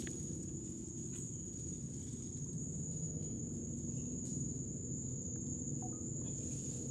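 Insects in the mangroves keep up a continuous high-pitched whine on one steady note. Beneath it runs a low, steady rumble.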